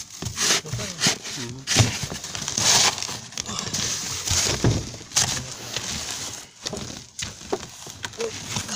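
Snow shovel scraping and scooping snow, a run of separate, irregular strokes roughly one a second.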